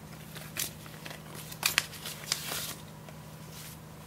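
Paper leaflets rustling and flicking as they are handled, with a few sharp crackles a little past the middle, over a steady low hum.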